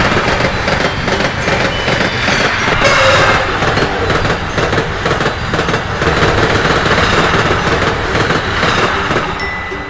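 Train passing a level crossing: dense rumbling and wheel clatter, a railway sound effect sped up to double speed, fading near the end.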